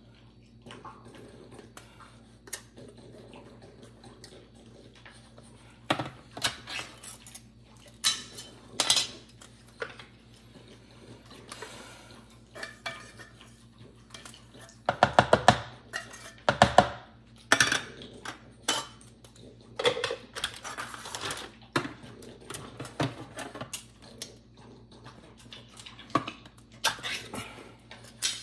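A spatula scraping wet puppy food out of small metal cans into a plastic bowl, with scattered clinks and taps. About halfway through comes a denser spell of quick scraping.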